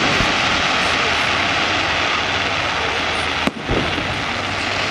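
Fireworks display: a steady, dense wash of noise with two deep booms, one near the start and another about three and a half seconds later.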